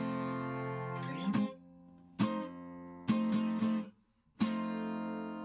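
Outro music on guitar: a handful of strummed chords about a second apart, the last one left to ring out and fade.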